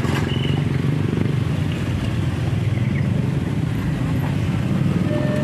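Several small motor scooters and a car running over the crossing, a steady mixed engine rumble of passing traffic. A faint steady high tone starts near the end.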